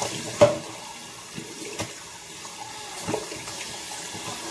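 Bathroom sink tap running while a washcloth is rinsed under it, with a few sharp knocks, the loudest about half a second in.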